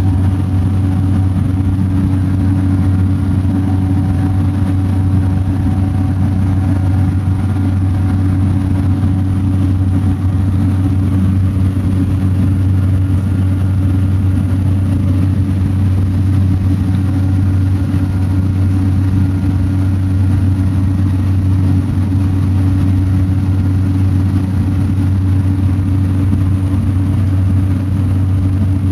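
Small plane's engine and propeller droning steadily, heard from inside the cabin during the climb after takeoff.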